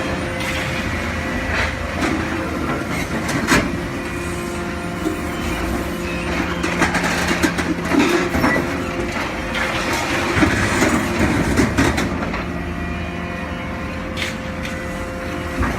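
Hydraulic horizontal scrap-metal shear at work: a steady machine hum with irregular metal clanks and knocks as scrap steel is handled and cut.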